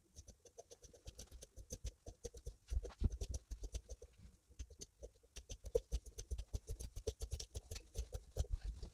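Fabric scissors snipping through folded lace fabric along a marked line, a quick, uneven series of cuts, several a second.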